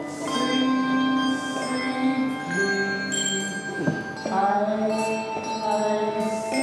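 Handbells rung as a group playing a Christmas carol tune, one note at a time: a new note starts every second or two and each is left to ring on, overlapping the next.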